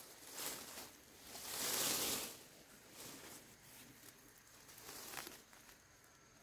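Rustling that swells to its loudest about two seconds in, with a faint tap about five seconds in.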